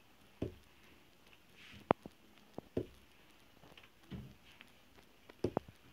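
Wooden hand-printing block being set down and struck onto cloth on a padded printing table: a series of short, sharp taps and thuds at uneven intervals, the loudest about two seconds in.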